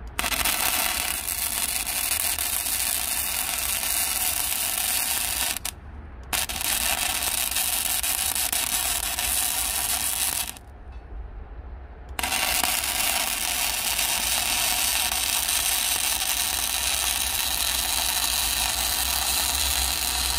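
Electric arc welding on steel beam: a steady crackling hiss that starts and stops sharply, in three runs with short breaks about six seconds and about eleven seconds in.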